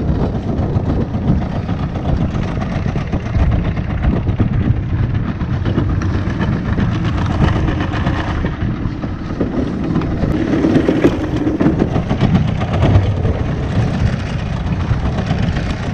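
Boat's outboard motor idling with a steady low rumble.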